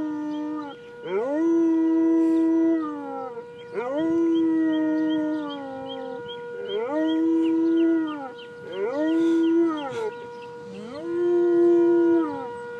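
A dog howling over and over: five long howls, each sliding up, holding one note and then falling away, with the steady wail of tornado sirens running underneath.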